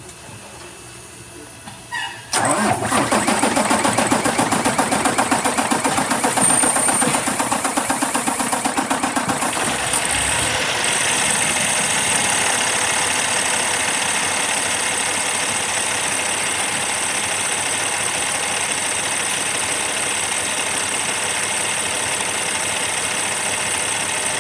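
2016 Cummins ISX15 inline-six diesel engine starting about two seconds in. It runs with a rapid pulsing beat for several seconds, then settles into a steady idle.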